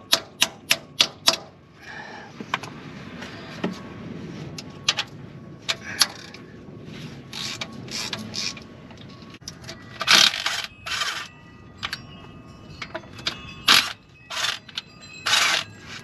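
Ratchet wrench clicking as rusted transmission pan bolts are worked loose: single clicks with two short runs of rapid ratcheting, one just after ten seconds and one near the end. At the start come about five quick, sharp metallic taps.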